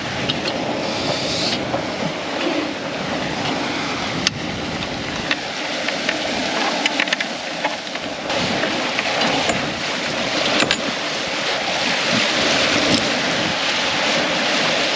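Wind on the microphone and water rushing along the hull of a sailboat under way downwind, a steady noise. A few sharp clicks come through it.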